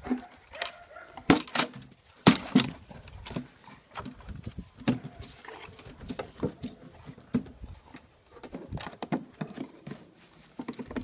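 A Lithuanian hound biting, shaking and knocking a hollow plastic canister about: irregular hollow plastic knocks and crunches, the loudest in the first three seconds.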